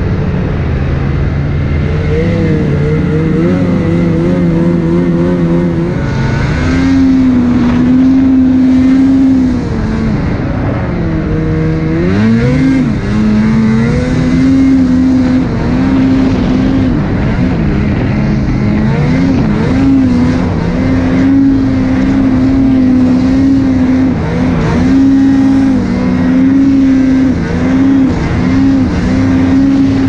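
2020 Lynx Boondocker snowmobile's two-stroke engine running hard while climbing through deep powder, its pitch repeatedly dropping and climbing back as the throttle is worked.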